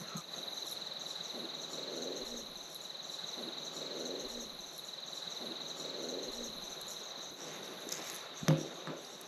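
Night ambience: insects chirring on one steady high note, with three soft, low hoot-like calls about two seconds apart. A single sharp knock, the loudest sound, comes near the end.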